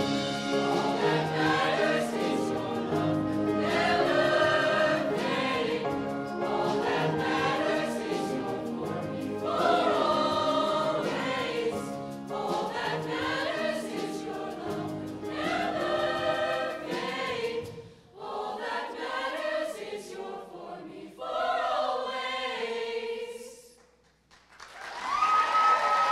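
Mixed show choir singing in full chords over band accompaniment. About two-thirds of the way through, the accompaniment drops out and the choir sings on alone to the song's close. Near the end, audience applause starts, with a whistle.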